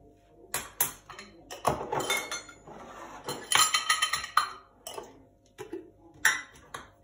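A metal teaspoon clinking against a cooking pot and glass spice jars being handled and set down on the counter: a run of sharp clinks and taps, densest around the middle.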